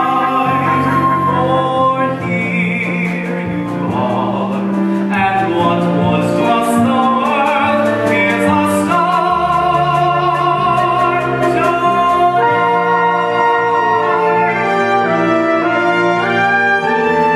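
A live pit orchestra, with brass prominent, plays a slow musical-theatre love song while a singer holds long notes with vibrato.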